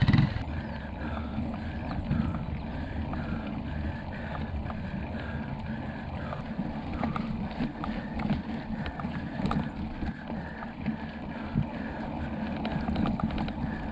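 Mountain bike climbing slowly on a rough concrete road, heard from a handlebar camera: a steady rumble of tyres and wind on the microphone, with a regular sound repeating about two and a half times a second, in time with the pedal strokes, and scattered ticks. A short loud burst comes right at the start.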